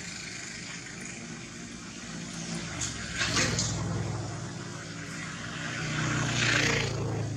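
A motor vehicle engine running, its low hum swelling twice, with bursts of hiss.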